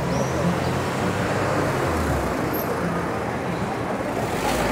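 Street traffic in a city: a motor vehicle's engine running with a low steady hum over general traffic noise, swelling louder near the end as traffic comes closer.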